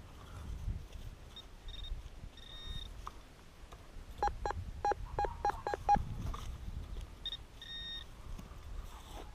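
Metal detector beeping: a few short high-pitched tones, then a quick run of about seven short lower-pitched chirps in the middle, then more high tones near the end. The erratic signals are typical of interference from nearby electric fences, which set the detector beeping at random.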